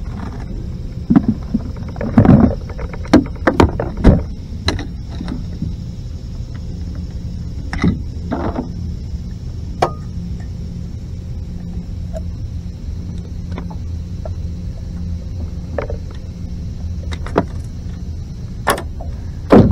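Scattered knocks and bumps from handling gear in a small fishing boat, thickest in the first few seconds and again near the end, over a steady low hum.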